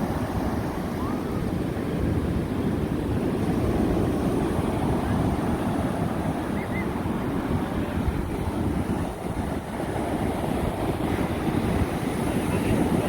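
Ocean surf: waves washing steadily onto the shore, with wind rumbling on the microphone.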